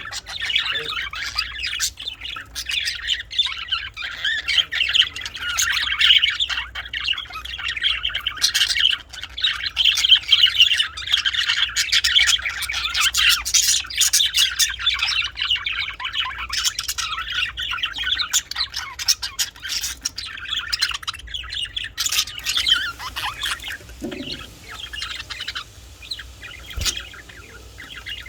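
Budgerigars chattering and chirping continuously, a dense warble of rapid calls that thins out after about 22 seconds.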